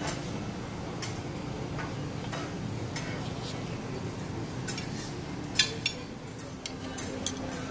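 Scattered sharp clinks of dishes and cutlery over a steady room hum. The clinks come more often in the second half, and the loudest falls about five and a half seconds in.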